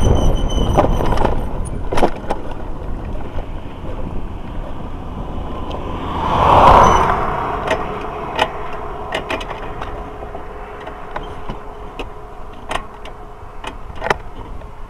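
Motor vehicle noise fading away over the first few seconds. About halfway through comes a brief rise and fall, like a vehicle passing, with scattered sharp clicks throughout.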